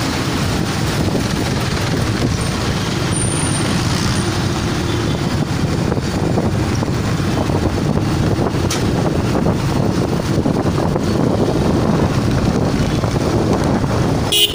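Car engine and road noise heard from inside the cabin while driving in city traffic: a low, steady rumble.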